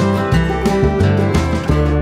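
Instrumental passage of a country song between sung lines: strummed acoustic guitar over a bass line, with no singing.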